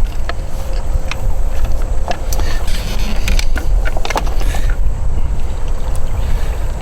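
Gear being handled in a kayak: scattered knocks and clicks, busiest about three to four and a half seconds in, over a steady low rumble.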